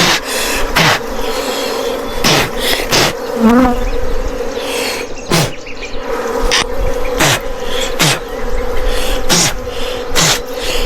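A swarm of wild honeybees buzzing loudly around the microphone: a steady hum, with single bees flying close past every second or so, each one's pitch dropping as it passes.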